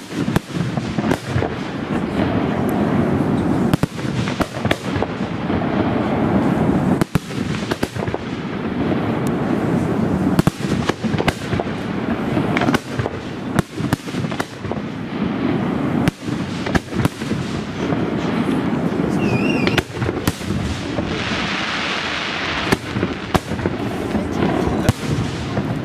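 Aerial firework shells bursting one after another in a rapid, continuous barrage of sharp bangs and crackles. A stretch of dense crackling comes about three quarters of the way through.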